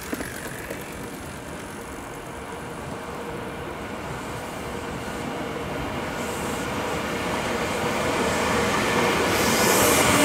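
Tokyu electric commuter train approaching on the rails, its running noise growing steadily louder until it passes close by near the end.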